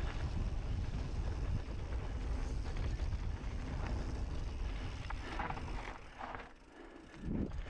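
Wind buffeting the camera microphone and mountain bike tyres rumbling over a dirt trail while riding. The rumble drops away briefly about six and a half seconds in, then picks up again.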